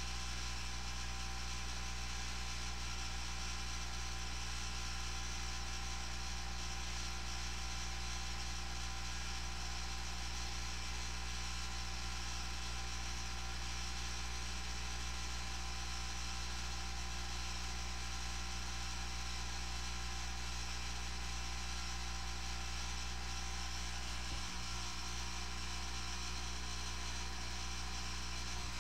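Steady electrical hum and hiss with no speech: the noise floor of a wired handheld microphone, with mains hum.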